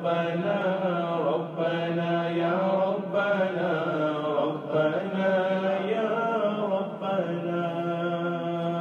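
A man's voice chanting the closing of an Urdu naat, its melody gliding up and down over a steady low drone.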